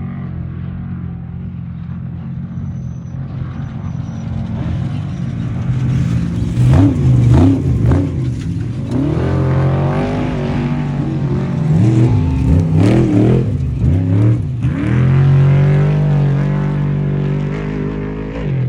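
Off-road race truck engine running steadily, then revved up and down several times in quick rises and falls of pitch, before settling back to a steady run.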